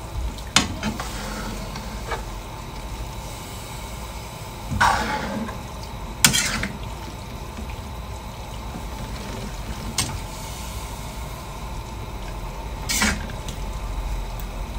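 Rice noodles being tossed and stirred in a wok of chicken stock with a metal ladle: a steady wet slosh of the noodles in the liquid, with about five sharp clinks as the ladle strikes the wok.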